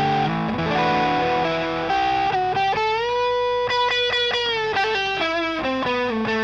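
Electric guitar played through a Catch 22 overdrive pedal, a Timmy-style overdrive, with a mildly overdriven tone. It plays a melodic line of single notes, holding one note for about a second midway.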